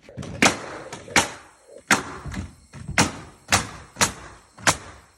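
Nails being driven into the floor with hard, sharp strikes, about eight of them, roughly one every two-thirds of a second.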